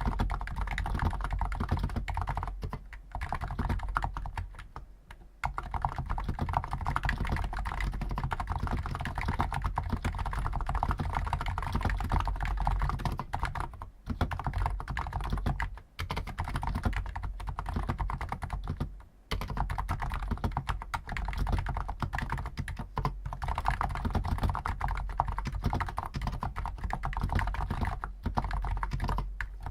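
Continuous fast typing on a Hansung GTune CHL5 XRGB electro-capacitive keyboard with stock 50 g switches, a dense run of soft key strokes with a few short pauses, the longest about five seconds in and about nineteen seconds in.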